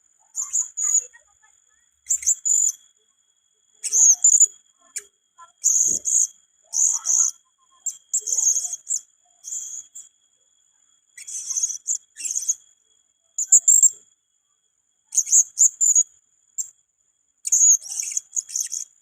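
Blue-crowned hanging parrot (serindit) calling: short bursts of shrill, very high chirps, repeated every second or two.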